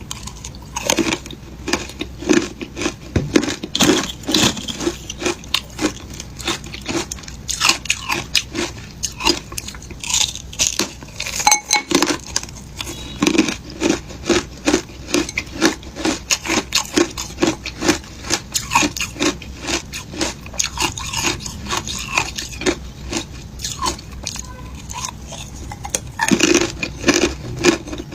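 Shaved ice being bitten and chewed: a quick, even run of crisp crunches, a few a second.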